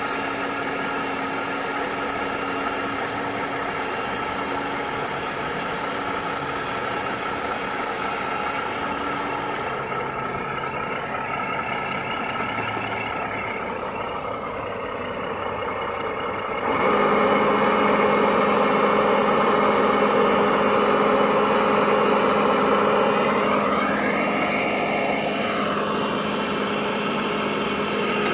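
Simulated diesel truck engine from a 1/14 scale RC truck's sound unit, running steadily and stepping up louder about 17 seconds in. Near the end a whine rises and falls.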